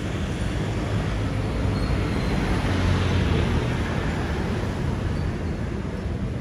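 Steady street traffic noise, swelling as a vehicle passes about three seconds in.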